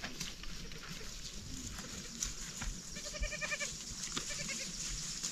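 A goat bleating once about three seconds in, a short quavering call, with a few faint knocks around it.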